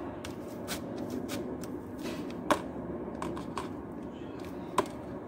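Metal fork clicking and scraping against a plate while mashing cooked potato, with two sharper knocks about halfway through and near the end, over a steady low background noise.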